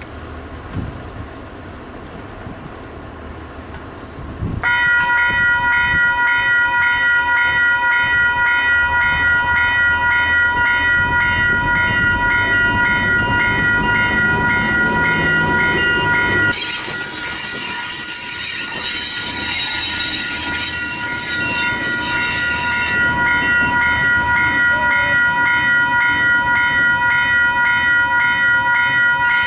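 Level-crossing warning bells start abruptly about five seconds in and ring on steadily, a ringing electronic tone repeating about twice a second. In the middle a loud high-pitched hiss comes in for about six seconds. Near the end a DSG diesel locomotive is approaching the crossing.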